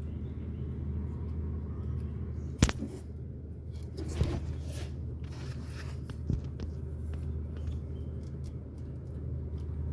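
Car engine idling steadily under the hood, with a few sharp clicks or knocks on top, the loudest about two and a half seconds in.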